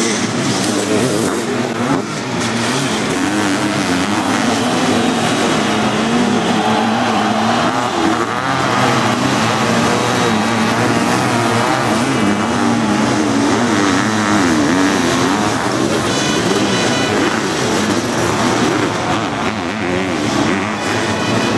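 Sidecar motocross outfits' engines revving hard, several machines at once, their pitch rising and falling with the throttle as they race over the dirt track.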